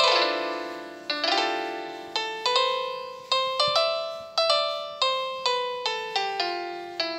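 Background piano music: a slow melody of single struck notes, each ringing and fading, opening with a louder chord.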